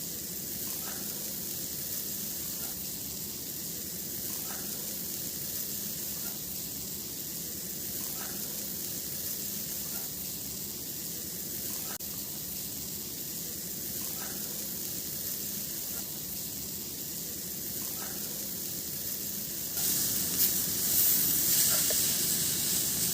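Food sizzling and hissing as it cooks over a campfire, a steady hiss that grows louder and rougher near the end.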